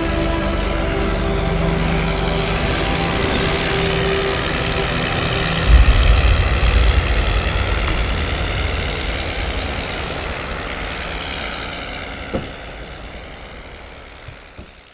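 Blackburn Monoplane's Gnome rotary engine running steadily in flight. About six seconds in, a deep boom sets off a heavy rumble that slowly fades out.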